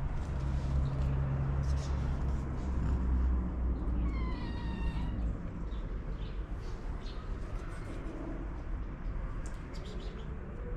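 A cat gives one high-pitched meow, about a second long, some four seconds in, over a low steady rumble that fades out around the middle.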